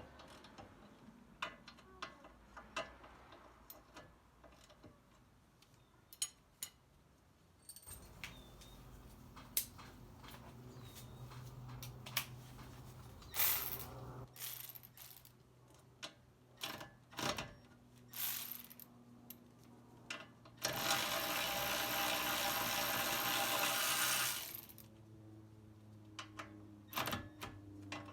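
Hand-tool work on a car's front suspension: scattered sharp metallic clicks and clanks, some ratchet-like. Past the middle, a power tool runs steadily for about four seconds, the loudest sound.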